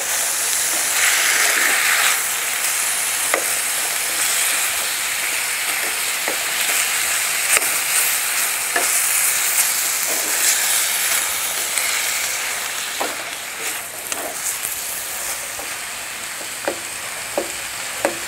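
Meat chunks and sliced onions sizzling in a steel frying pan on high heat while being stirred, with a metal slotted spoon clicking and scraping against the pan now and then. The sizzle comes up suddenly at first and eases a little in the second half.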